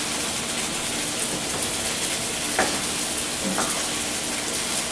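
Chopped tomatoes, onion and jalapeño sizzling in a hot frying pan while a wooden spoon stirs them, with a couple of soft knocks of the spoon against the pan.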